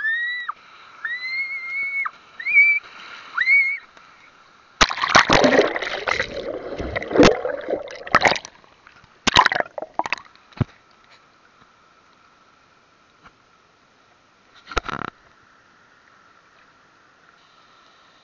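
Water splashing and sloshing with knocks and rustles, in dense bursts from about 5 to 10 seconds in and once more near 15 seconds, over a faint steady high tone. In the first few seconds there are five short rising squeaky tones.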